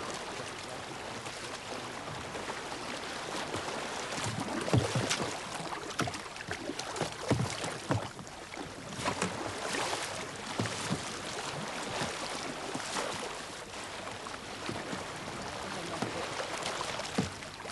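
Several kayakers paddling on a lake: paddle blades dipping and splashing in the water at an irregular pace, over a steady wash of water noise.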